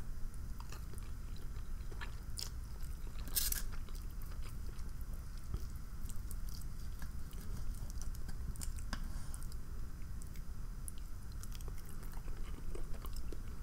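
Close-miked chewing and mouth sounds of a person eating, with many small scattered clicks and one sharper, louder click about three and a half seconds in.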